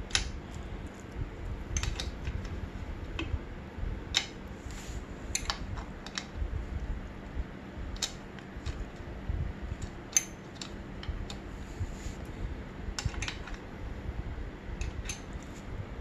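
Irregular light metallic clicks and ticks from hands working a dirt bike's drive chain and rear-axle chain adjuster while the chain slack is being set, over a low rumble from handling.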